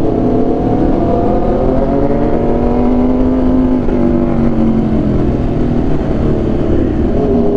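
Aprilia RSV4 1100 Factory's V4 engine through an SC Project exhaust, pulling on the road: the note climbs gently and then eases back down toward the end, over a constant low rush of wind.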